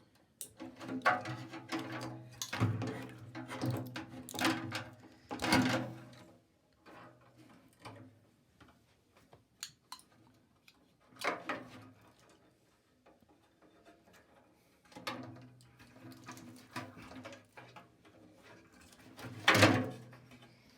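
Irregular knocks and clatter of metal microwave parts being handled and worked loose, with a low hum in two stretches, about the first six seconds and again near the end. The loudest knocks come near the middle and just before the end.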